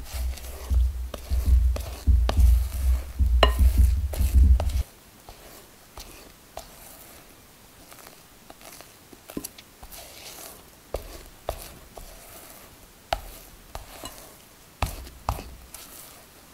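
A spatula folding and pressing thick macaron batter against a glass bowl during macaronage, working the meringue down to the right flowing consistency. It makes wet scrapes and small clicks, with a low rumble over the first few seconds that stops abruptly about five seconds in.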